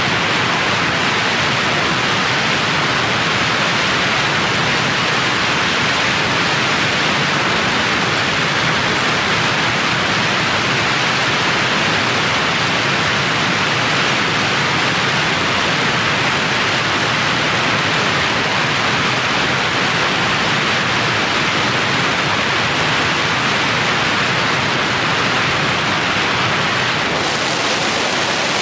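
Steady rushing wind over the onboard camera microphone of a Mini Talon fixed-wing FPV plane in flight, with no distinct motor tone. The hiss brightens slightly near the end.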